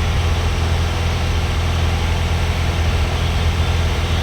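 Mahindra Bolero Power Plus BS6's three-cylinder diesel engine running steadily at a raised, scan-tool-controlled speed during a forced service regeneration (heat-up stage), which is burning off the exhaust filter.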